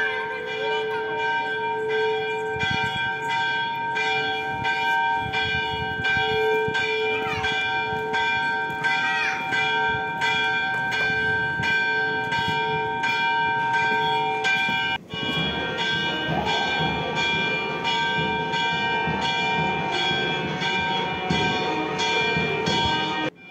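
Temple bells ringing continuously, struck in a fast, regular rhythm about twice a second, their ring sustaining between strikes. A brief sudden break comes about fifteen seconds in, and after it the ringing goes on with a busier low beat underneath.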